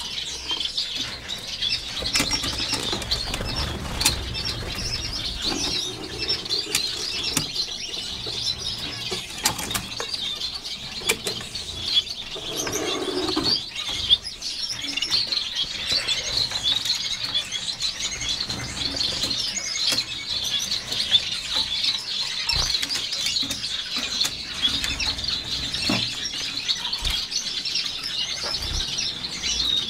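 A cageful of finches, Gouldian finches among them, chattering continuously in a dense mass of short, high cheeps and calls, with scattered small clicks.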